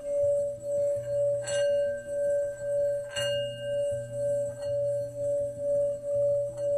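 Singing bowl ringing with one sustained tone that wavers, swelling and fading about two to three times a second. Two short clinks sound in the first half.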